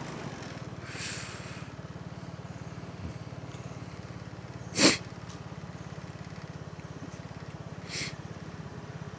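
Motorcycle engine idling steadily while the bike is stopped. A short, loud sniff close to the microphone comes about halfway through, and a fainter one near the end.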